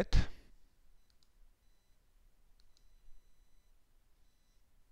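A few faint computer mouse clicks, some in quick pairs, with a faint high-pitched whine sounding briefly between them.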